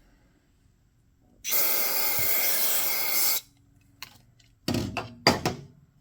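Pressurized spray hissing while carburetor parts are cleaned out: one long, loud blast of about two seconds, a small click, then two short blasts near the end.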